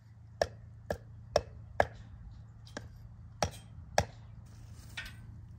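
Hammer blows on a fence stake: four sharp strikes about half a second apart, then a couple more spaced further out, with a few lighter taps between.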